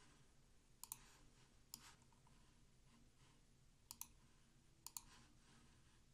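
Faint computer mouse clicks: a double click about a second in, a single click shortly after, and two more double clicks around four and five seconds in.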